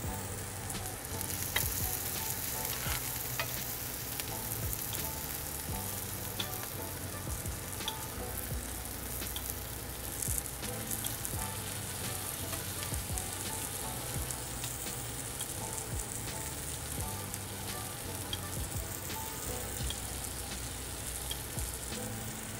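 Pork loin chop sizzling in hot melted butter in a frying pan while the butter is spooned over it (butter basting): a steady frying hiss with occasional crackling ticks.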